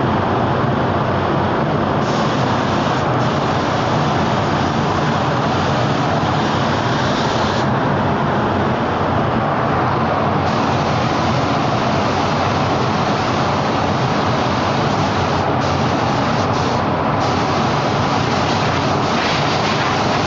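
Steady rush of a paint spray booth's air flow, with the hiss of a hand-held spray gun triggered on and off in spells of several seconds. The gun stops for about three seconds a little before the middle and twice more, briefly, later on.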